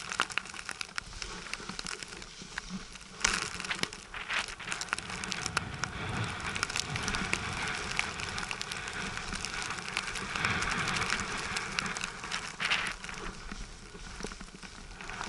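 Snowboard sliding and carving down a snow-covered slope: a continuous scraping hiss of the board on snow, full of small crackling ticks. It grows louder through the middle stretch and eases near the end.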